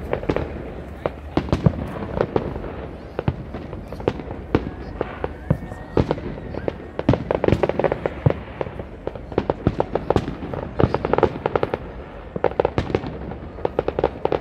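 New Year fireworks going off in a dense, continuous barrage of overlapping bangs and crackles.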